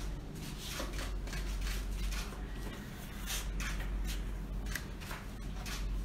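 Irregular paper rustling with scattered soft clicks as a printed photograph is handled, over a steady low electrical hum.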